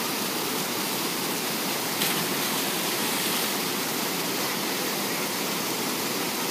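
Waterfall rushing steadily, an even wash of falling water, with one brief faint click about two seconds in.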